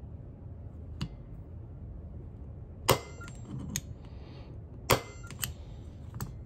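Sharp metal-on-metal strikes, two loud ones about two seconds apart with a short ring after each and a few lighter clicks around them: a pin punch being tapped with a hammer to centre-punch a stainless steel bolt release button before drilling.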